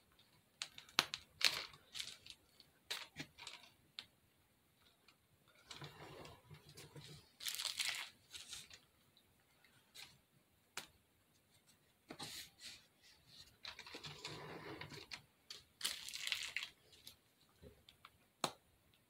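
Plastic piping bag filled with spackle crinkling and rustling as it is squeezed and twisted by hand, with scattered small clicks. The rustling comes in short spells, loudest about eight seconds in and again near sixteen seconds.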